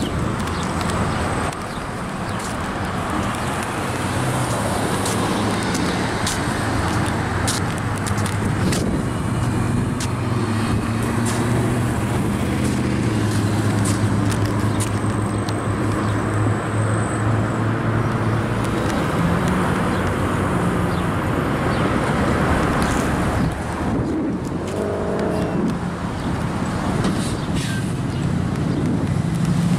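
Car engine running with road and traffic noise. The engine note shifts up and down a few times as the car drives.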